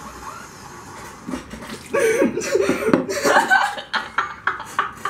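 A young woman laughing out loud in short, broken bursts, breaking into laughter about two seconds in.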